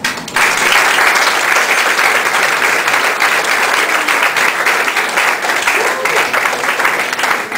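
Audience applauding, a crowd's clapping that breaks out abruptly just after the start and keeps up steadily.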